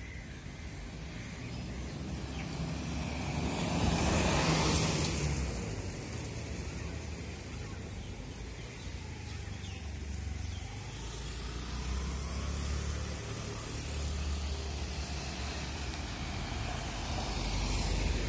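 Road traffic: a steady low rumble, with a motor vehicle passing about four seconds in, the sound swelling and fading. Another vehicle passes near the end.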